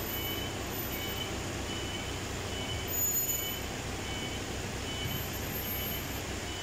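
A vehicle's reversing alarm beeping steadily, a little more than once a second, over the low rumble of a running engine, with a brief louder noise about three seconds in.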